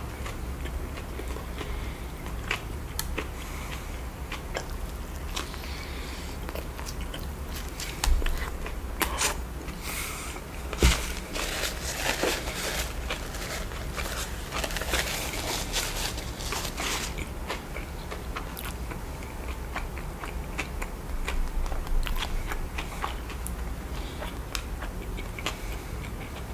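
A person chewing a mouthful of animal-style Shake Shack burger, with wet mouth clicks and smacks throughout. Two louder sharp knocks come about eight and eleven seconds in.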